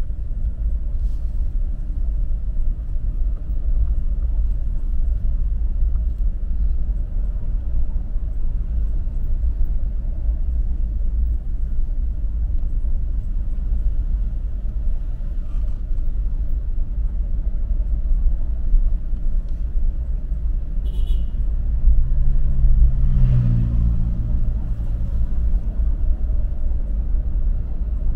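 Vehicle driving along a road, a steady low rumble of engine and road noise. About two-thirds of the way through a louder pitched drone rises over it for a couple of seconds.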